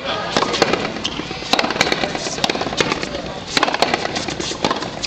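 Front tennis rally: a tennis ball struck hard with rackets and smacking off the fronton wall and concrete floor, a string of sharp cracks, often in quick pairs, about a dozen in all.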